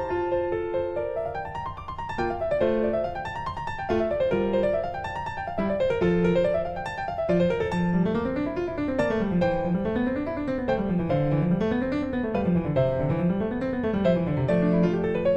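Background music played on piano, with notes rising and falling in running arpeggios over a lower line that also moves up and down.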